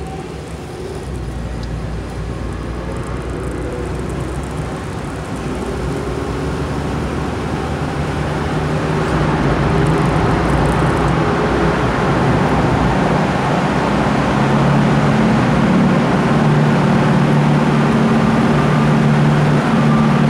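Engine and tyre noise of traffic heard from inside a moving car. It grows steadily louder and boomier about halfway through as the car drives into a road tunnel behind a minibus.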